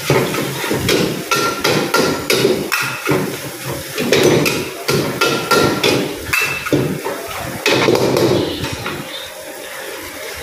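Metal wok ladle and spatula clanging and scraping against a wok while fried rice is stir-fried over a gas burner: a fast, irregular run of sharp metal strikes, some ringing briefly. The clatter eases near the end.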